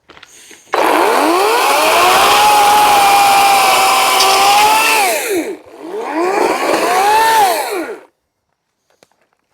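EGO CS1801 battery-electric chainsaw with a full-chisel chain cutting branches. The motor whine rises quickly, holds steady for about four seconds, and winds down. A second shorter rev-up and wind-down follows, and then the saw stops.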